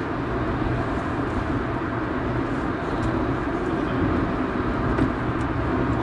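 Steady interior drone of a first-generation Honda Insight's 1.0-litre three-cylinder engine and tyre and road noise, heard inside the cabin while the car cruises at an even speed.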